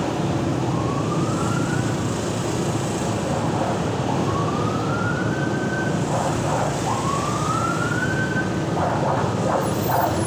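A siren whoops three times, each a rising sweep lasting a second or two, a few seconds apart. Short choppy sounds follow near the end. Under it runs the steady noise of a Honda scooter's engine and the surrounding traffic.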